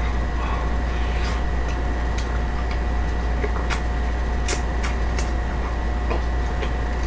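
Close-up eating sounds: chewing on braised chicken, with a handful of sharp mouth clicks clustered around the middle. Under them runs a steady low hum with a faint constant whine.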